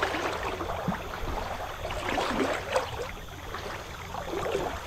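Water splashing and lapping at the bow of a kayak as it is paddled along, in irregular splashes over a steady watery hiss.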